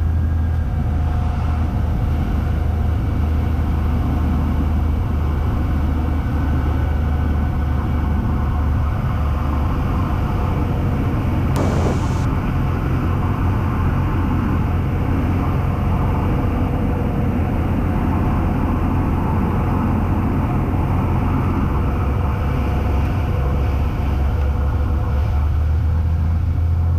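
Cessna 182's engine and propeller droning steadily in the cabin on approach to land, heard through the headset intercom audio as a strong, even low hum. There is a brief click about halfway through.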